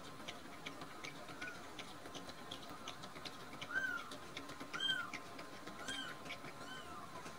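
Bottle-fed newborn kitten giving short squeaky mews about once a second while nursing, with faint clicking from its suckling on the bottle teat.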